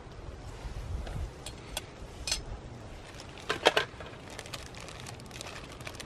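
Crinkling plastic bag being handled, with a short loud burst of crackles about three and a half seconds in and fine rustling ticks near the end.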